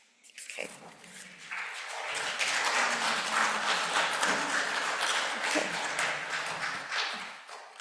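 Congregation applauding: a dense patter of clapping that builds over the first two seconds, holds, then dies away near the end.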